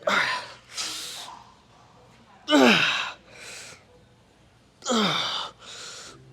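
A person breathing hard while straining through lifting reps. Three forceful exhales with a falling pitch, each followed by a quick inhale, come about two and a half seconds apart.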